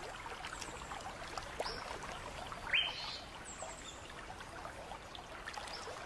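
Creek ambience: a faint trickle of water with scattered short bird calls, the loudest a quick rising whistle a little under three seconds in.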